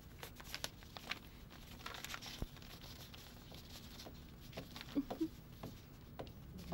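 Faint paper rustling and crinkling as a paper envelope is opened and a letter pulled out, with a few soft scattered clicks.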